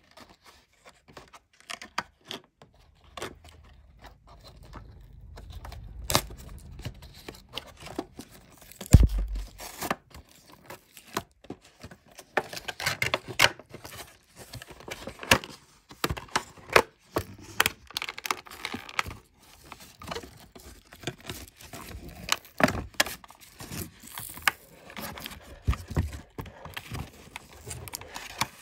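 Plastic blister packaging and its printed card and wrapper being handled, crinkled and pulled apart by hand, giving irregular crackles, clicks and tearing sounds. One louder thump about nine seconds in.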